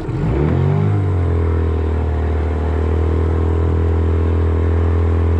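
Small outboard motor on a jon boat revving up over the first second, then running at a steady pitch as the boat moves under way.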